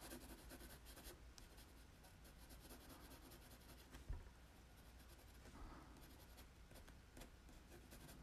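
Faint scratching of a pencil on paper, quick short shading strokes, with a soft bump about four seconds in.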